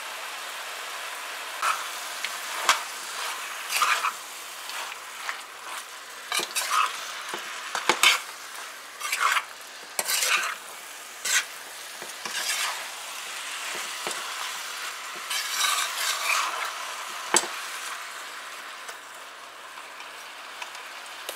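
Squash and chicken curry sizzling in a frying pan while a metal spoon stirs it, scraping across the pan in irregular strokes about once a second. The stirring stops a few seconds before the end, leaving only a steady sizzle.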